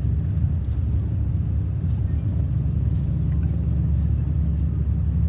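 Steady low rumble, with no siren heard.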